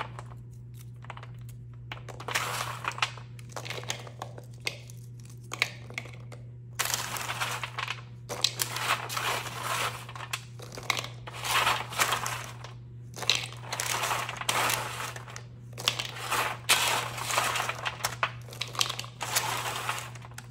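Hardened white-chocolate almond bark coating cereal and pretzels being broken up by hand and dropped into a bowl: a long run of irregular crinkling, crunching rustles, over a steady low hum.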